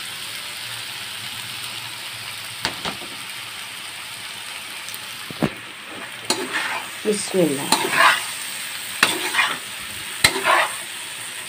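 Vegetables and boiled macaroni sizzling in a hot nonstick wok while a metal spatula stirs them, scraping and clicking against the pan; the stirring gets busier in the second half.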